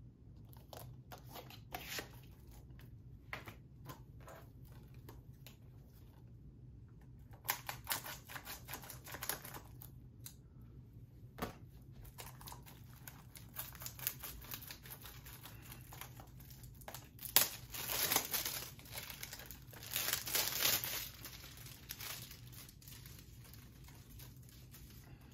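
Plastic shrink-wrap being torn and peeled off a Blu-ray case, crinkling in several bursts with scattered clicks and taps in between. The loudest crinkling comes in the second half.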